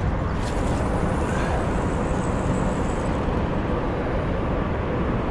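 Steady rumble of road traffic, an even wash of noise that does not change.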